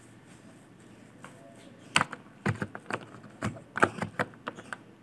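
Computer keyboard typing: a quick, uneven run of about a dozen key clicks starting about two seconds in.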